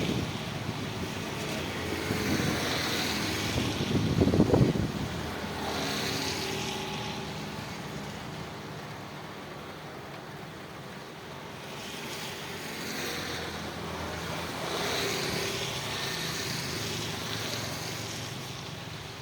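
Steady rushing noise of rain, with the hum of passing motor vehicles swelling and fading over it, loudest about four seconds in.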